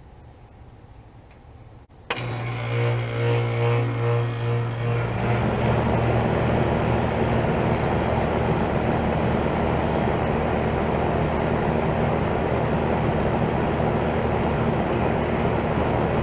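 1998 York Stellar Plus 1.5-ton R-22 central air conditioner condensing unit starting up. About two seconds in, the compressor kicks on with a sudden loud hum. A few seconds later the condenser fan's airflow noise builds, and the unit settles into a steady run.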